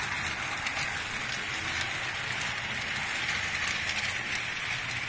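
HO scale model train running on its track: a steady whirring rush with faint light clicks scattered through it.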